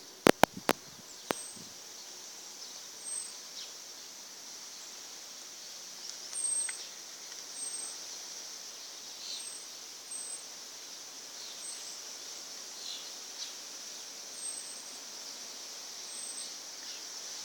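Outdoor summer ambience: a small bird repeats a short, very high chirp every second or so over a steady high-pitched chorus. A few sharp clicks come in the first second.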